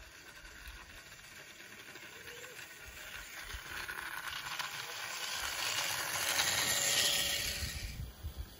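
Small battery-electric garden-railway locomotive, a Simplex kit model, running along the track as it is sped up from first to second gear. Its motor, gears and wheels on the rails make a hissing rattle that grows steadily louder as it comes closer, peaking about seven seconds in, then falls away.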